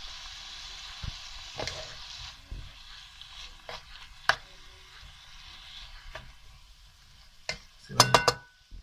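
Seafood, bacon and mushrooms sizzling in a hot frying pan while a wooden spatula stirs them, with scattered knocks against the pan. The sizzle thins after about two seconds, and a quick run of loud clicks near the end is the loudest sound.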